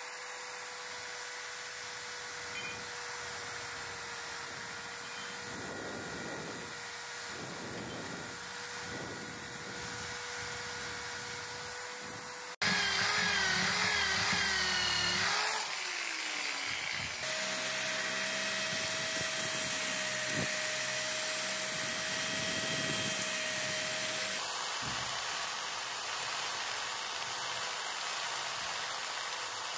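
Power drill spinning a wire brush against the metal body of an antique meat grinder to scrub off rust: a steady motor whine with scraping hiss. The sound changes across a few cuts: a louder stretch where the whine wavers as the brush is pressed and eased off, then a steady, slightly higher whine.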